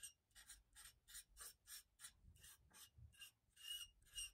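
Metal palette knife scraping and smearing ink across thin Tomoe River paper in quick, faint back-and-forth strokes, about four a second.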